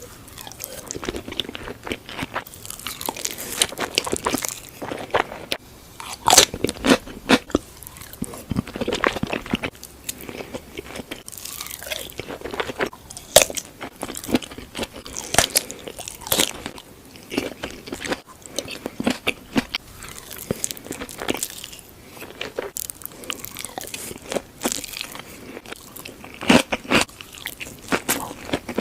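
Close-up eating sounds: repeated bites and crunches of food with wet chewing in between, coming irregularly many times.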